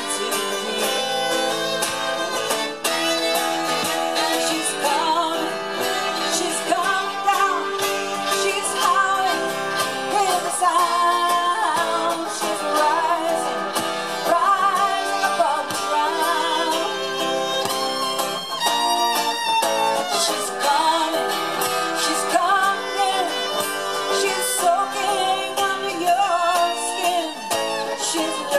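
Live acoustic folk music: fiddle and acoustic guitar playing together, with a woman singing.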